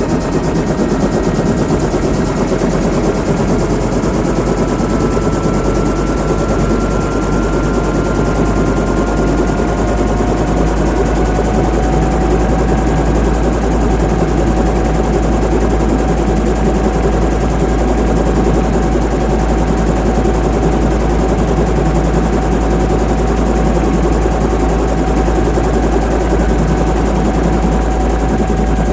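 Bell 212 helicopter's twin-turbine powerplant and rotor running loud and steady during its start-up run-up. A thin turbine whine rises slowly in pitch over the first dozen seconds, then holds steady over a constant low rumble.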